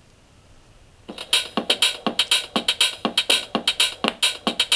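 Electronic dance music starting about a second in, played through a cheap Bluetooth LED bulb speaker: a quick, thin percussive beat with little bass. The sound is very poor.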